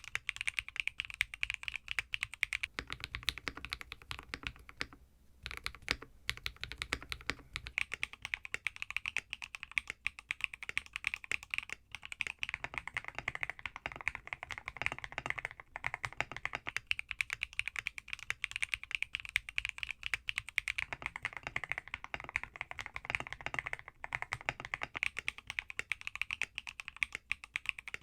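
Fast, continuous typing on a mechanical keyboard, a dense run of keystroke clacks with a brief pause about five seconds in.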